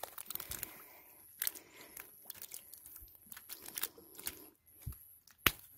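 Small live fish flopping in wet mud in a woven bamboo basket: scattered wet crackles and light slaps, with one sharper knock near the end.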